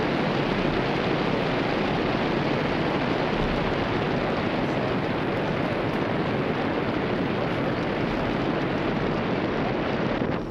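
Steady rush of wind over the microphone of a handlebar-mounted camera on a road bike moving at speed.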